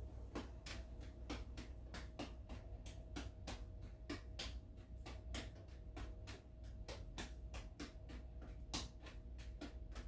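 Light-up juggling balls landing in bare hands during three-ball juggling: a steady run of sharp catch clicks, about three a second, over a faint steady hum.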